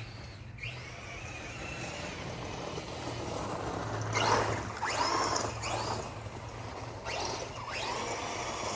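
Losi 8ight X Super Lasernut 1/6-scale RC buggy driving, its electric motor whining up in pitch with each burst of throttle, several times, over a steady rush of tyre and drivetrain noise.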